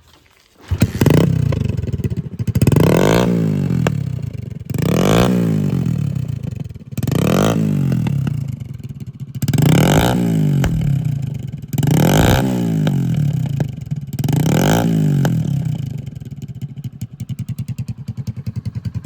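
Motorcycle exhaust as its engine is revved seven times, about every two seconds, each rev rising and falling back, then settling to a steady idle near the end.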